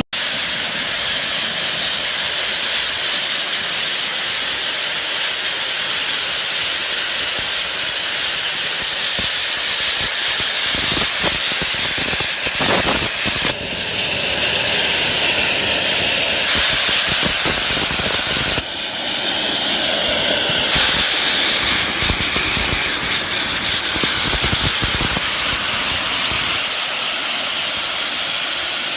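Heavy machinery running with a loud, steady hissing noise, changing abruptly twice along the way.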